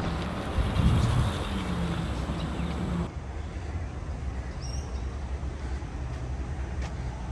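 Motor vehicle engine hum in city traffic, a steady low drone with a louder swell about a second in. The hiss above it drops away suddenly about three seconds in.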